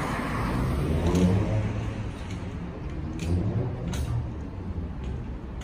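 Car driving past close by, its engine and tyres rising to a peak about a second in and then fading, with another swell of traffic a little after three seconds.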